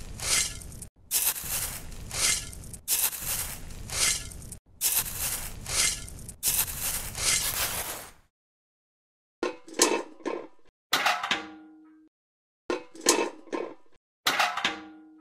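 A tiny shovel scooping and scraping a dry sand and cement mix in a run of short gritty strokes. Later come three clusters of light clinks and knocks as small tin and plastic buckets are set down, with a brief metallic ring after some of them.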